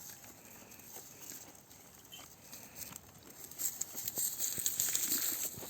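Goats in a pen: scattered clicks, knocks and rustling that grow louder in the second half.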